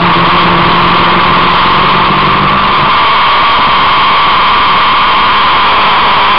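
Loud, steady rush of wind and road noise from a vehicle running at speed, with an engine drone underneath that fades about halfway through.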